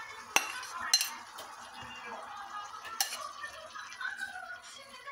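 Kitchen utensils clinking against pots and dishes during cooking, with a few sharp clinks about half a second, a second and three seconds in.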